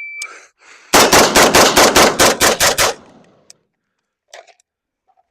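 A shot timer beeps, then a rifle fires a fast string of about a dozen shots in under two seconds, with echo trailing off after the last shot.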